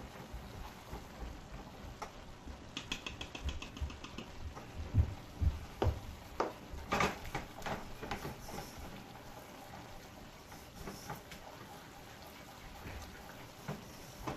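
A silicone-coated whisk scraping and tapping against a nonstick saucepan as flour is whisked into melted butter to make a roux. A quick run of clicks comes about three seconds in, and the loudest knocks of the whisk against the pan come a few seconds later.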